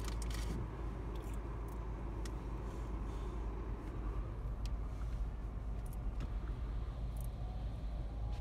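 Car running, heard from inside the cabin: a steady low rumble with a few faint clicks.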